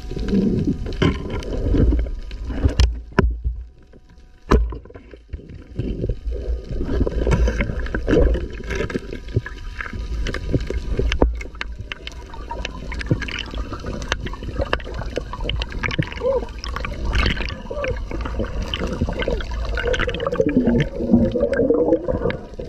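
Underwater sound through a camera housing: gurgling bubbles over a low rumble, with many sharp clicks and knocks as a speared eel is handled on the spear shaft.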